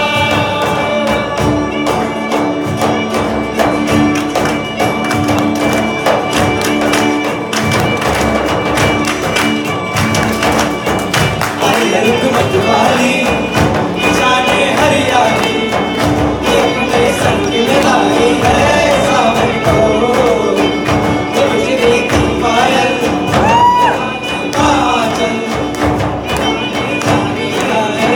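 Live acoustic band playing: acoustic guitars and violin over a steady beat on cajon and hand drums, with a group of voices singing, the singing becoming more prominent about twelve seconds in.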